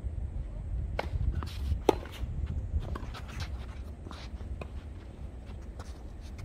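Tennis balls struck with rackets in a doubles rally: a few sharp pops about a second apart, the loudest about two seconds in, with shoes scuffing on the court and a steady low rumble underneath.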